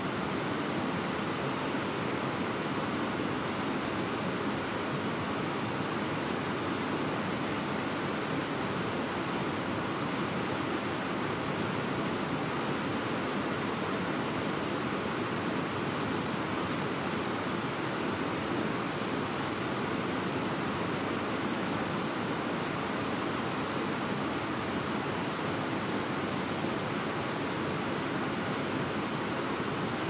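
Fast-flowing mountain river rushing over rocks and a small concrete weir: a steady, unbroken rush of white water.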